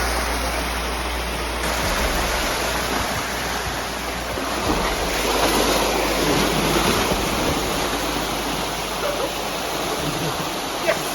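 Steady rush of creek water pouring over rocks in small falls and chutes, swelling slightly about halfway through.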